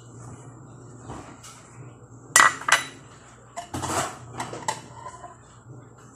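Dishes being washed by hand in a sink, clattering and clinking: two sharp clatters about two and a half seconds in, then a run of lighter clinks about a second later.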